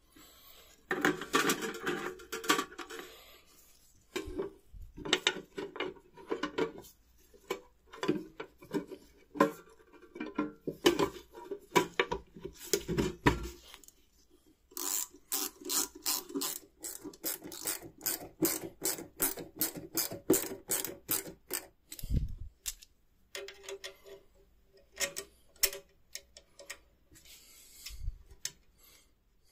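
Clicks, knocks and scrapes of small metal parts of an old slide projector being handled, fitted and screwed together, with a long run of quick clicks in the middle.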